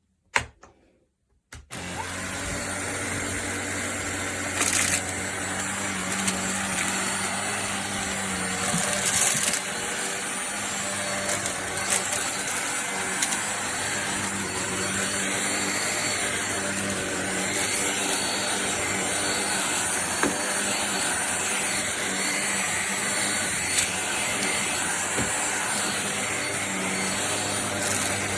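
Kenmore DS1030 cordless stick vacuum starting up about two seconds in after a click, then its motor running steadily with a hum and a hiss, with occasional sharp ticks.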